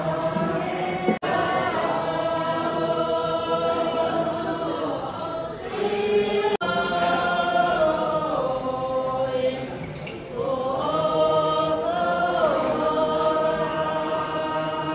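A group of voices singing together in unison, holding long notes that step and slide from one pitch to the next. The sound cuts out for an instant twice, about a second in and past the middle.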